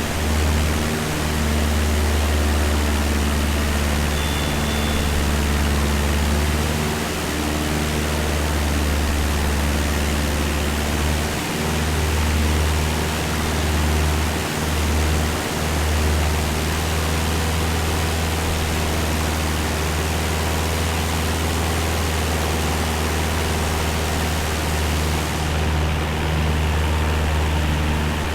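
Cessna 172's piston engine and propeller droning steadily in flight, with a broad rush of wind and airflow noise over it.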